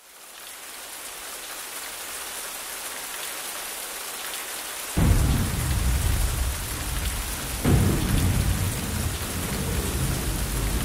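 Heavy rain fading in as a steady hiss. About five seconds in a sudden thunderclap breaks in and is followed by low rumbling, and a second sharp crack of thunder comes near eight seconds.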